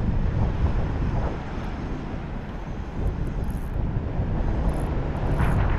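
Wind buffeting the microphone: a loud, fluctuating low rumble, with a stronger gust near the end.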